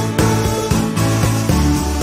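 Instrumental background music with pitched notes on a regular beat.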